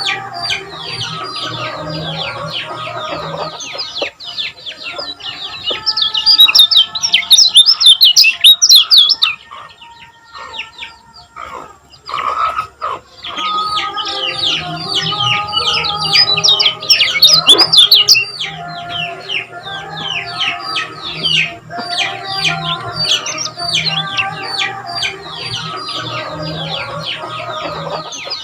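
Kecial kuning (lemon-bellied white-eye) singing fast, rapid-fire runs of short, high, downward-sweeping chirps. The song comes in two loud, dense bursts, one about a quarter of the way in and one around the middle, with a brief lull between them.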